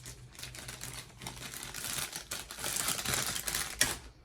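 Rustling and small clicks of plastic model-kit packaging and parts being handled, growing busier in the second half.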